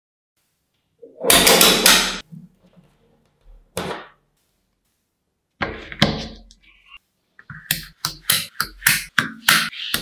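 Small magnetic balls clicking and clattering as they snap together: a dense rattle about a second in, a few shorter clusters of clicks, then a steady run of sharp clicks, about three a second, in the second half.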